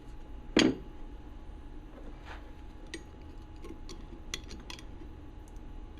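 Small steel parts of a ratchet head being handled: one louder knock about half a second in, then a few faint metallic clicks.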